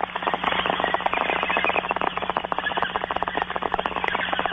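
Bong hit sound effect: water bubbling rapidly and unevenly through a bong, over a steady low hum.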